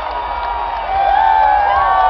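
Large concert crowd cheering and screaming, with many high, held shrieks and whoops overlapping; it swells louder about a second in.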